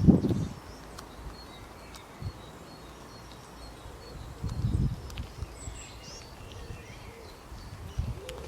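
Faint, scattered bird chirps over steady outdoor background noise, with a few low muffled bumps: one at the start, one a little after the middle, one near the end.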